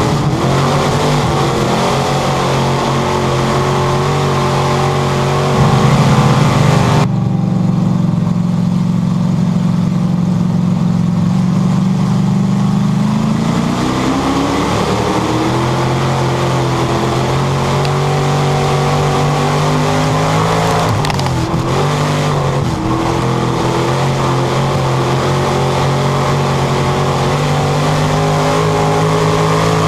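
A purestock dirt-track race car's engine, heard from inside the cockpit while racing: a loud, steady engine note whose pitch eases off and climbs again in a few places as the throttle is lifted and reapplied. For several seconds about a quarter of the way in, the sound turns duller and more muffled.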